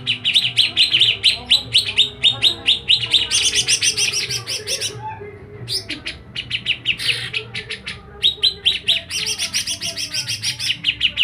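A songbird singing vigorously in long runs of rapid, repeated high chirps, about seven a second, with a brief pause around the middle.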